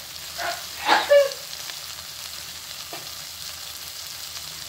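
Blended onion, garlic, ginger and dried-chilli paste being sautéed in oil in a non-stick wok: a steady sizzle, with a few scrapes of a spatula stirring it in the first second or so. The paste is being fried down until it is fragrant and the oil separates.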